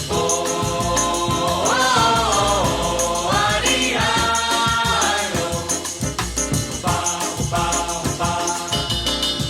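Background music with a steady shaker rhythm and a melodic lead line that slides in pitch. It changes abruptly right at the end as the next song begins.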